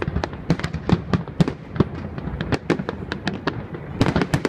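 Aerial fireworks shells bursting in a rapid, irregular string of sharp bangs, several a second, crowding into a thick cluster near the end.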